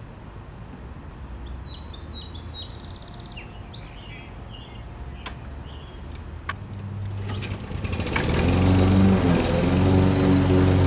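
Toro Personal Pace walk-behind mower engine coming up to speed about seven seconds in, then running loud and steady. Before that, faint background with a few bird chirps.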